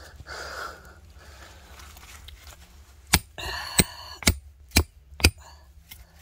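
A hand tool striking stone and Khorasan lime mortar: five sharp hits about half a second apart, starting about halfway through, with a short crumbling rattle after the first.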